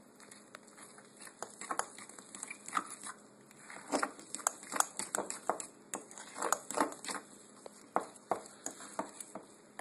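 Fork stirring stiff batter in a ceramic bowl: irregular clicks and scrapes of the fork against the bowl, sparse in the first second or so, then quick and busy.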